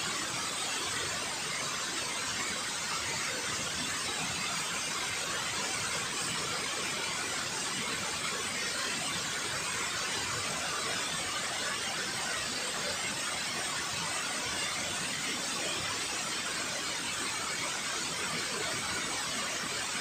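Steady rush of water pouring down a concrete dam spillway into the river, a constant hiss that stays the same level throughout.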